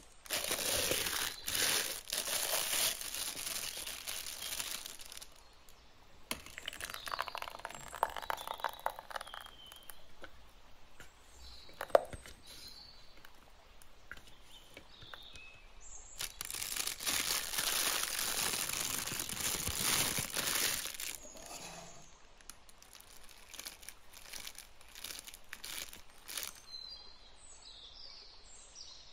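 Thin plastic piping bag crinkling and rustling as it is handled and filled, in two long stretches. One sharp click comes about twelve seconds in.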